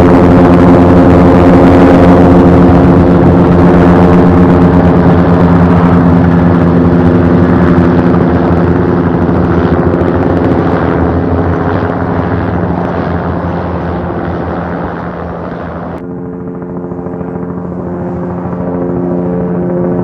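Helicopter flying overhead, a steady loud drone of rotor and engine that slowly fades over the middle. About three-quarters of the way through it switches abruptly to a duller, muffled helicopter sound that grows louder again.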